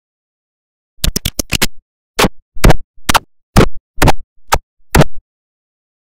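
A chopped, stuttering sound effect made of short, clipped bursts: about six in quick succession around a second in, then seven more spaced about half a second apart.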